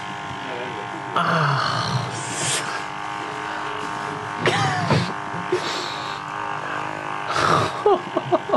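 Handheld electric massager humming steadily while pressed against the head behind the ear. Over it, the person being massaged laughs and groans in several loud bursts.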